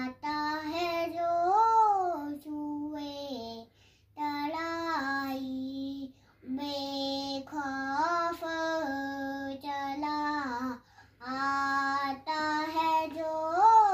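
Young boy chanting a Quran recitation (tilawat) solo and unaccompanied, in long held melodic phrases that glide up and fall away, with short breaths between them.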